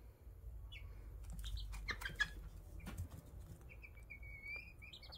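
Young chickens peeping softly, with a few faint clicks and rustles among them. A longer, drawn-out peep comes near the end.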